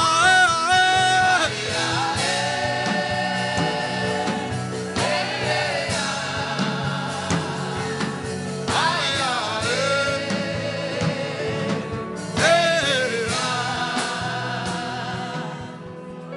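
Gospel worship chant: a voice holds wavering sung notes over instrumental backing, fading out near the end.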